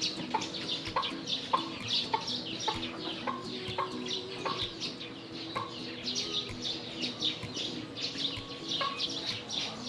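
Birds calling: many short high chirps, with lower clucking calls.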